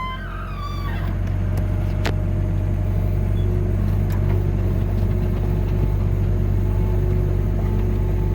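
Vehicle engine and road rumble, a steady low drone that grows slightly louder over the first second or so as the vehicle picks up speed. A short pitched call trails off downward in the first second.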